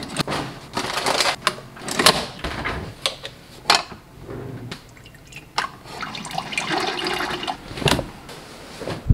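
Keurig coffee maker brewing into a ceramic mug, then liquid poured from a carton into the mug, with repeated clicks and knocks of handling throughout.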